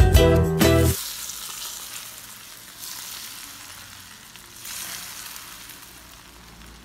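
Ukulele-style strummed music that cuts off about a second in, then hot oil sizzling in a kadai of raw mango pieces and pickle spices. The sizzle swells twice and slowly dies down.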